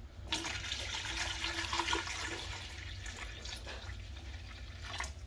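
Juice pouring from a large plastic bottle into a plastic pitcher. It starts a moment in, is loudest over the first couple of seconds as the stream hits the pitcher, then runs on more quietly.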